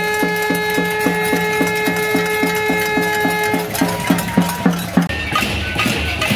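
Demonstrators banging pots and pans in a steady beat of about four strikes a second. A long held horn note sounds over the first few seconds, then a short higher one. The beat breaks up near the end.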